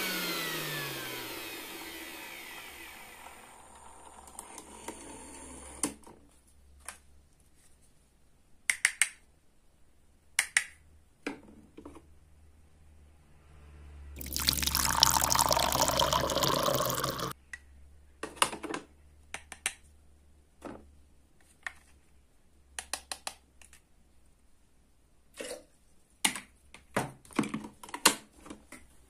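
A toy hand mixer's small motor winds down, its pitch falling, followed by light clicks and taps of plastic toy parts. About halfway through, liquid is poured from the mixer's plastic bowl into a small plastic cup for about three seconds, then more scattered plastic clicks.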